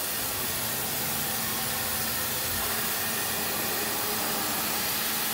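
Aluminium profile CNC drilling-milling machine running with a steady hiss and a faint low hum, its spindle head idle above the clamped profile before cutting.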